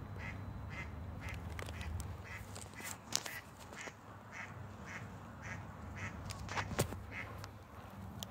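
Ducks quacking in a steady series of short calls, about two a second, with two sharp clicks, about three and seven seconds in, over a steady low rumble.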